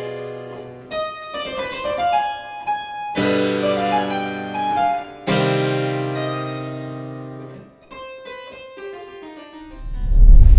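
Harpsichord playing full chords struck about every two seconds, each ringing on and fading, then a few quieter notes. Near the end a deep low boom swells up and is the loudest sound.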